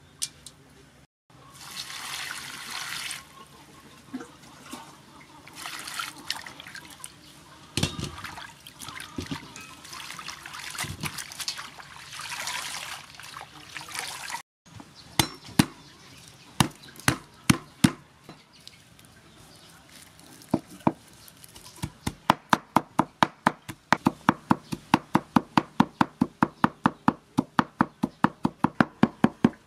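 Leafy greens swished in a steel bowl of water and lifted out, water splashing and pouring off them in bursts. Then a cleaver mincing garlic on a wooden chopping board: a few scattered knocks, then rapid, even chopping at about four strokes a second.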